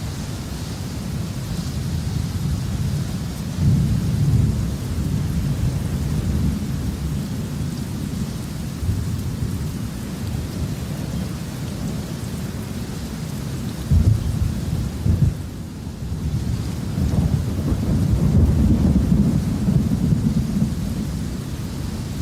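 Thunderstorm: steady rain hissing while thunder rumbles low and unbroken, swelling into louder rolls several times.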